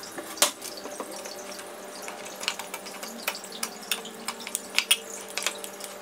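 Metal fork clinking and scraping against a glass Pyrex measuring jug while mashing banana: a run of irregular sharp clicks, the loudest about half a second in, over a steady low hum.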